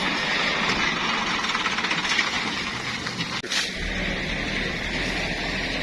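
Motor vehicle running past, a steady rough engine and road noise, with a deeper engine rumble coming in a little after halfway and a single click about three and a half seconds in.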